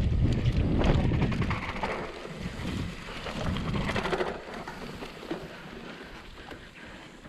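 Wind buffeting the microphone and tyre noise as a mountain bike is ridden along a trail, loud and rumbling for the first two seconds, then easing off as the bike slows.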